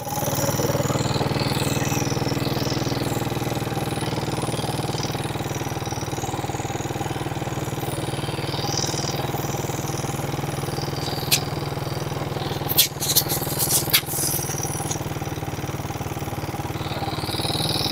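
A vehicle engine running at a steady pace while travelling, with a few sharp clicks about two-thirds of the way through.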